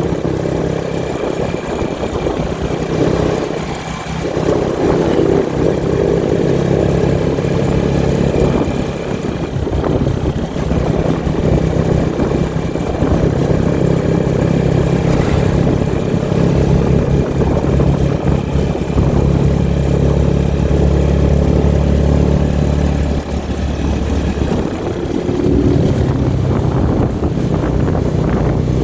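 A road vehicle's engine running steadily while on the move, with a low hum.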